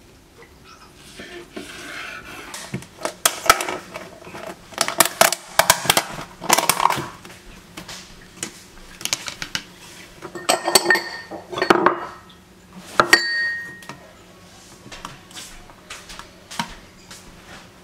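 Kitchen clatter: a spoon and dishes clinking and knocking against a plastic tub and ceramic bowls, in a run of sharp clicks, a couple of them ringing briefly past the middle.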